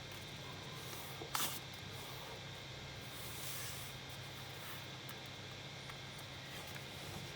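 Paper being handled and folded: a short crisp crinkle about a second in, then a softer rustle around three seconds in, over a steady low hum.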